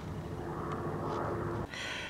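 Steady low background rumble with no distinct event, changing abruptly shortly before the end.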